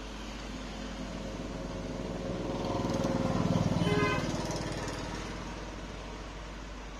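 A motor vehicle's engine passing by, swelling to its loudest about three to four seconds in and then fading away, over a steady low hum.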